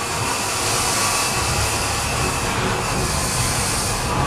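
Narrow-gauge Corris Railway passenger carriage rolling slowly along the track, heard from inside the coach as a steady running noise from the wheels and rails.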